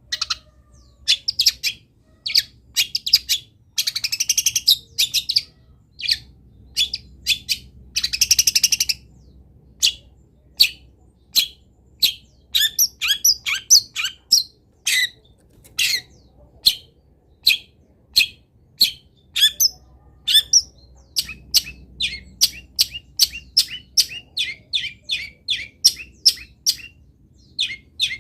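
Long-tailed shrike (cendet) singing a fast string of sharp, short chirps and whistles, broken by two harsh raspy bursts about four and eight seconds in. It is a full, varied song packed with mimicked calls of other birds ('full isian').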